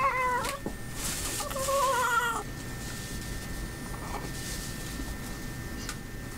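Newborn baby crying: a wavering wail ending about half a second in, a short gasp, and a second wavering wail ending near the 2.5-second mark, then about four seconds of quieter pause before the next cry.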